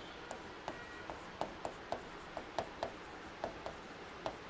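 Marker pen writing on a whiteboard: a quick, uneven series of short taps and scratches as the letters are written, about three or four a second.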